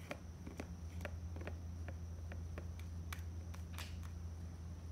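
Light, scattered clicks and taps, about one or two a second, from a Maine Coon kitten at play, over a steady low hum.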